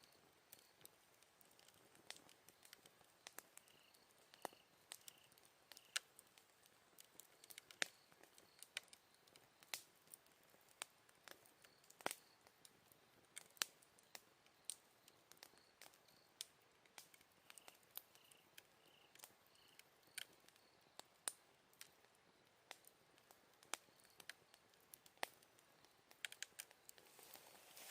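Wood campfire crackling, with irregular sharp pops and snaps. Faint autumn insects chirp in short, evenly spaced runs in the background.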